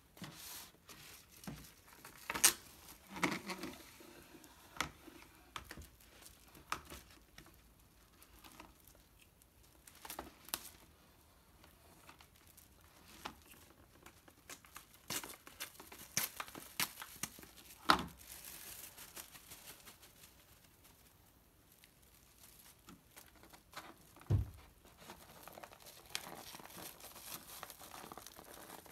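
Plastic wrap and plastic freezer bags crinkling and rustling as they are handled, with scattered light clicks and taps. A few sharp snaps stand out, loudest about two seconds in and again past the middle, and a dull thump comes near the end.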